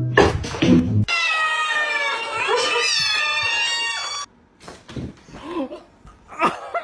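A cat giving one long, wavering yowl of about three seconds, followed by a few shorter, fainter cries.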